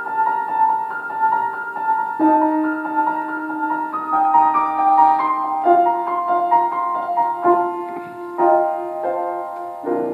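Grand piano playing alone, a slow passage of struck and held notes and chords with no voices, closing the song.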